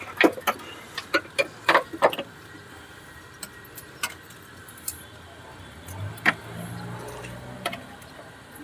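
Metal clinks and knocks of a hand tool and a metal water-pump coolant pipe being worked loose against the engine: a quick run of sharp clicks in the first two seconds, then scattered single clicks. A low steady hum comes in about six seconds in and fades a second and a half later.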